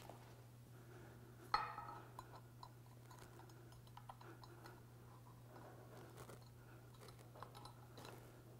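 Faint small clicks and handling noises of hands working a greased rubber boot and thin wires into a ball-and-trunnion universal joint housing, with one sharper click about a second and a half in, over a steady low hum.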